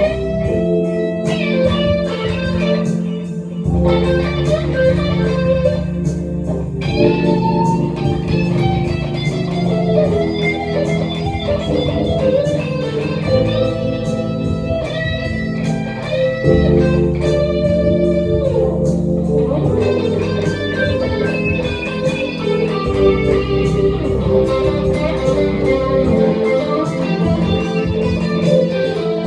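Telecaster-style electric guitar playing an improvised jam, melodic lead lines over sustained low bass notes that change every few seconds.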